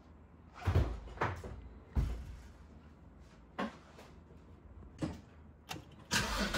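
A series of separate clunks and knocks, about six spread over a few seconds. Near the end a louder continuous noise sets in.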